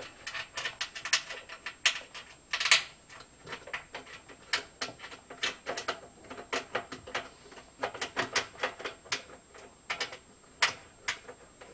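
Sharp, irregular clicking and ticking of a hand tool and metal parts as a screw is worked in by hand inside a front-loading washer's drum housing, the clicks coming singly and in quick clusters.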